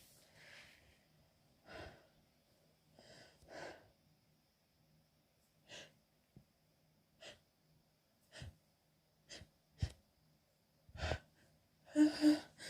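A woman's hitchy sneezing fit from a cold coming on: about ten short, sharp catching breaths at uneven intervals, then a loud, voiced sneeze in two quick bursts near the end.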